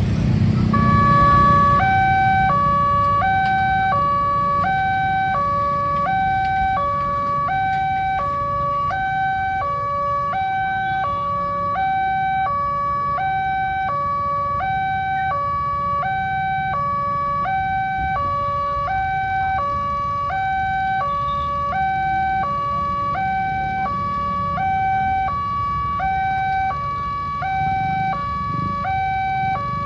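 Railway level-crossing barrier alarm: an electronic two-tone signal, starting about a second and a half in, that alternates evenly between a higher and a lower tone, one flip about every 0.7 s. It is the warning that a train is coming and the barrier is coming down. A low traffic rumble sits underneath.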